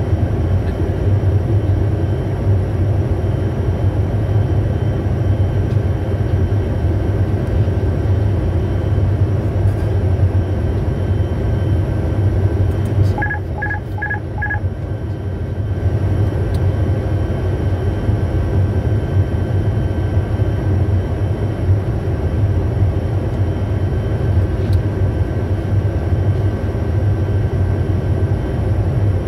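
Steady cockpit noise of a Bombardier Challenger 350 jet on approach: a low rumble of airflow and engines with faint steady high tones under it. About halfway through, four short electronic beeps sound in quick succession, and the rumble briefly drops while they play.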